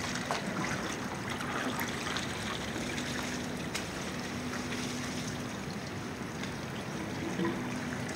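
Water trickling steadily in a tarpaulin fish pond.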